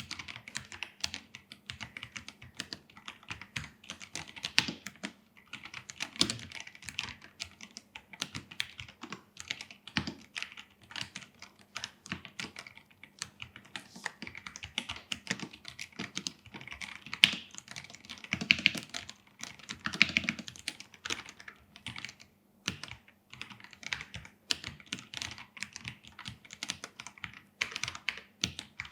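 Typing on an Akko PC75B 75% mechanical keyboard with Akko CS Jelly Purple tactile switches and PBT keycaps: a fast, irregular stream of key clacks, with a few louder strokes, likely the spacebar, standing out in the middle. The keyboard has a polycarbonate plate and silicone foam in the case.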